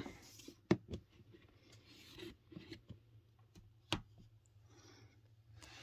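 Clear plastic enclosure tub being handled: plastic rubbing and scraping, with a sharp click just under a second in and another about four seconds in.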